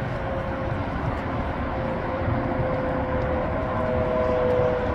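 A steady engine drone with a slowly falling tone, growing louder toward the end, over a low rumble.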